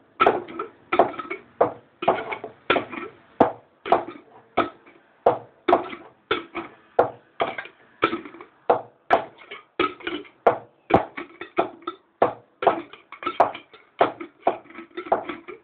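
A glass jar and its lid clinking and scraping over and over as they are handled and worked shut, in quick uneven strokes about two or three a second, each with a short ring.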